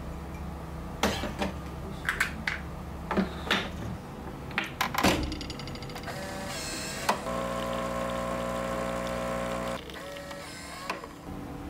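Clinks and knocks of porcelain cups and the machine being handled, then a Nescafé Dolce Gusto Circolo capsule coffee machine's pump runs with a steady hum for about two and a half seconds as coffee pours into the cup, stopping abruptly.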